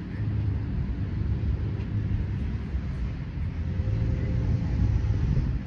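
Wind buffeting the microphone: an uneven low rumble that swells a little near the end.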